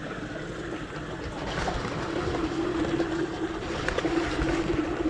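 Shallow stream water running steadily around a person's legs, with light splashing as they wade.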